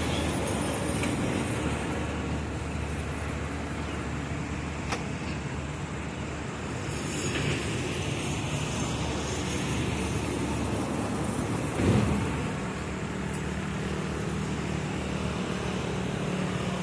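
Steady low engine rumble, with a brief louder swell about twelve seconds in.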